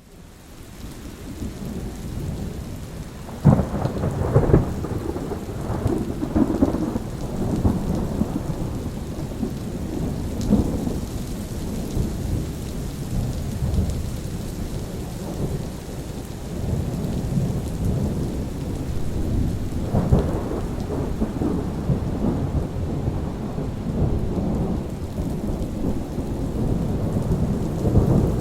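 Thunderstorm: steady rain with rolling low thunder, fading in over the first few seconds. A sharp thunderclap comes about three and a half seconds in and another about twenty seconds in, each followed by a long rumble.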